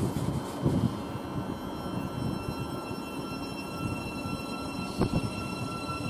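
Thameslink Class 700 Desiro City electric train pulling away: a steady electric whine from its traction equipment over a low rumble, with a single knock about five seconds in.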